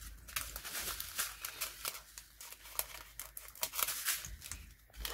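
Small plastic zip bags of diamond-painting drills crinkling and rustling as they are picked up and handled, a dense run of crackling that stops shortly before the end.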